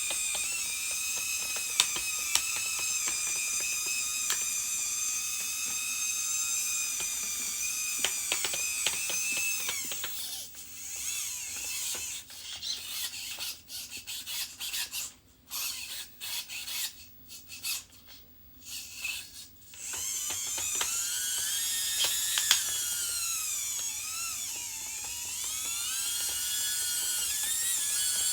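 Small electric motors and gearboxes of radio-controlled construction models whining at a high pitch, with light clicks. In the middle they run in short stop-start spurts for several seconds, then run steadily again with the pitch dipping and rising.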